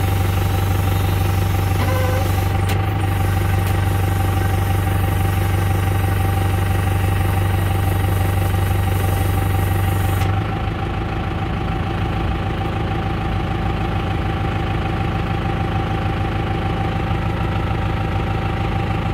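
Tractor engine running steadily with its hydraulics engaged, driving a Sipma Maja OS7531 bale wrapper as it moves itself into transport position. About ten seconds in, a deep hum stops and the sound drops a little.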